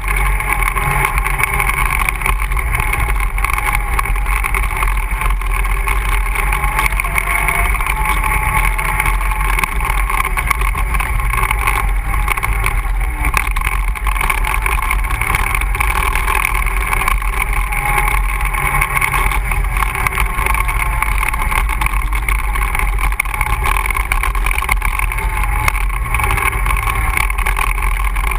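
ATV engine running steadily, holding much the same speed throughout with only slight wavering in pitch.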